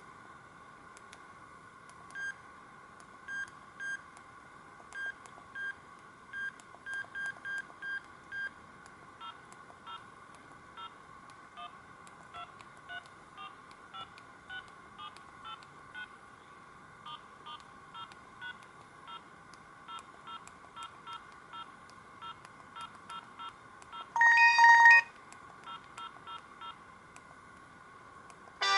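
Sony Ericsson K200i mobile phone key tones: a long series of short, faint beeps as its buttons are pressed, some about half a second apart and others in quick runs, with one louder beep of about a second near the end. A faint steady whine runs under them.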